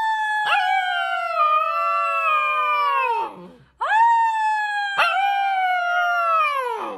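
A black-and-white husky-type puppy howling. One long howl slides down and fades a little over three seconds in, then a second howl rises, holds its pitch and slowly falls away.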